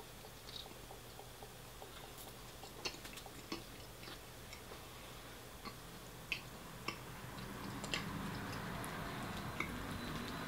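Close-miked chewing and mouth sounds of someone eating, with scattered sharp wet clicks. The chewing grows louder and fuller for the last few seconds.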